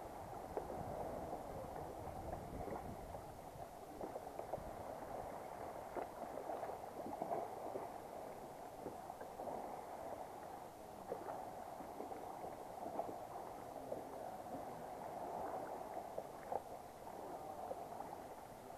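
Sea water lapping and splashing against a plastic kayak hull as it is paddled along, with irregular small splashes from the paddle strokes. The sound is muffled, most of it low and dull.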